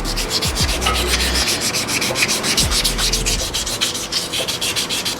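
Hand-sanding the steel tailstock quill of a lathe with a fine abrasive: quick back-and-forth scrubbing strokes, several a second, smoothing the quill so it slides in and out easily.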